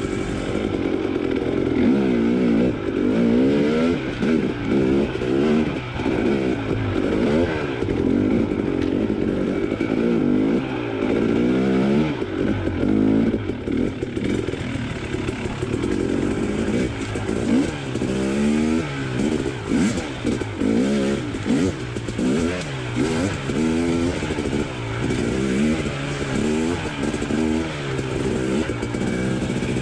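KTM dirt bike engine revving up and down over and over as the throttle is opened and closed, its pitch rising and falling every second or two.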